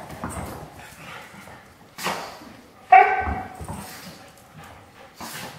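Dogs at play: one short, high-pitched yip about three seconds in, the loudest sound. Around it are a few brief, softer noisy sounds, one about two seconds in and one near the end.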